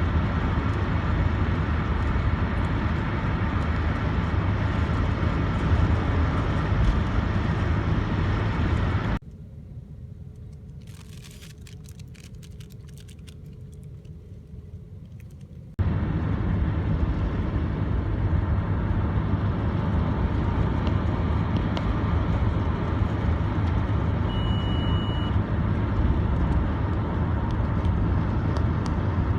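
Steady low road and engine rumble heard from inside a moving vehicle. About a third of the way in it drops to a quiet hum with a few faint ticks for several seconds, then the rumble returns. A short high beep sounds a few seconds later.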